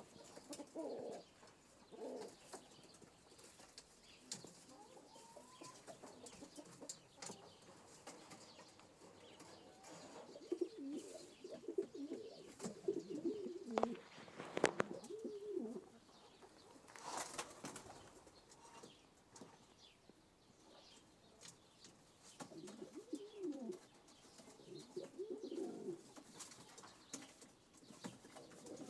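Pigeons cooing in low, rolling bouts, with a few short sharp clicks in between.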